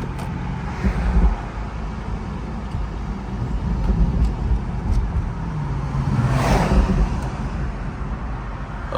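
BMW 340i's turbocharged straight-six running at low speed: a steady low engine hum with road noise, and a brief rush of noise about six and a half seconds in.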